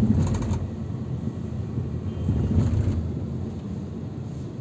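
Steady low rumble of a car's engine and tyres on the road, heard inside the cabin while driving, with a short knock right at the start.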